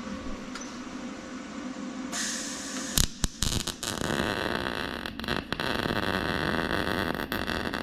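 Wire-feed welder laying plug welds on a steel seat plate. A few sharp pops as the arc strikes about three seconds in, then a steady crackle of the running arc.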